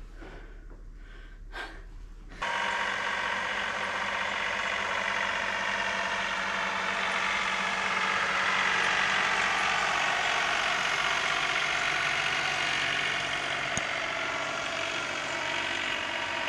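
A compact tractor's engine running steadily under load as it plows deep snow, starting suddenly about two seconds in.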